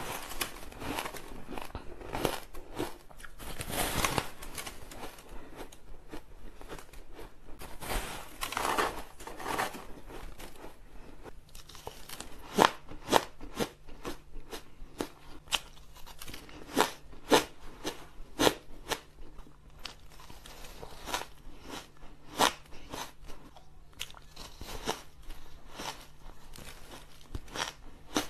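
Packed shaved ice being bitten and chewed close to the microphone. Thick, continuous crunching for roughly the first ten seconds gives way to sharp single crunches a second or so apart.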